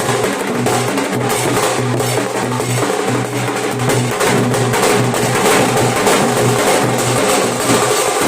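Nashik dhol drums beaten in a steady, fast, unbroken rhythm, loud throughout.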